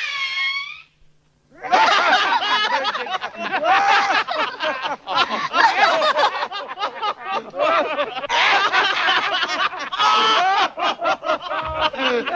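A group of cartoon characters laughing together at a big sneeze, breaking into overlapping chuckles and snickers about a second and a half in, after a brief falling tone dies away.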